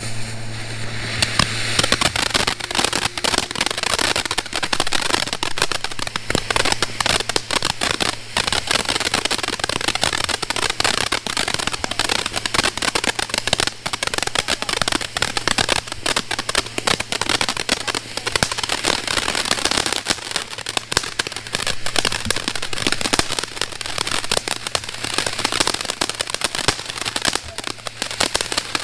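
Ground fountain firework spraying sparks: a continuous hiss packed with dense crackling, starting within the first second after the fuse catches and keeping up at a steady level.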